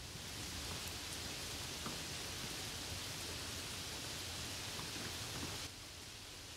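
Steady rain falling, an even hiss with no rhythm, which drops to a quieter hiss near the end.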